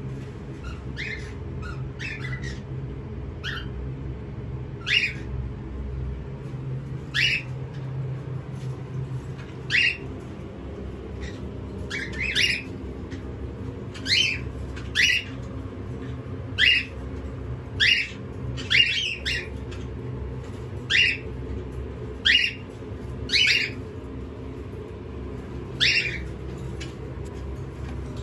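Pet parrot giving short, harsh squawks over and over, roughly one every second or two, each call dropping slightly in pitch. A steady low hum runs underneath.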